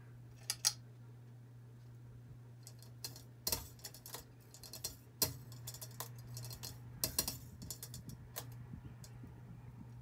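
Hunter Discovery 48-inch ceiling fan running with a steady low motor hum. Irregular sharp clicks and ticks sound over it: a pair about half a second in, then many more from about three seconds in until near the end.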